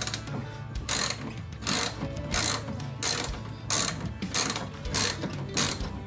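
Hand ratchet on an extension being swung in short repeated strokes, a burst of pawl clicking on each back-swing about every 0.7 seconds, as it backs out a rear bumper bolt reached through the wheel.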